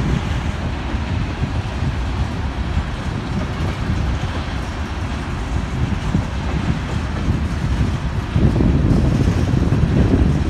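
Union Pacific freight train of covered hopper cars rolling past, a steady rumble of steel wheels on the rails that grows louder about eight seconds in.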